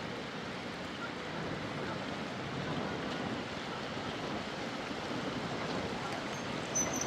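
Steady rushing of storm water, an even hiss without breaks.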